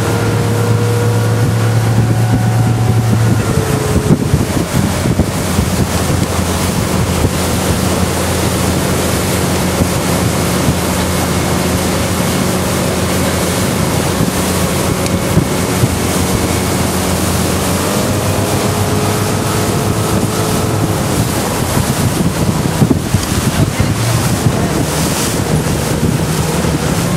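Towing motorboat's engine running at speed, with the rush of the wake and wind buffeting the microphone. The engine note changes about three seconds in and again around eighteen seconds.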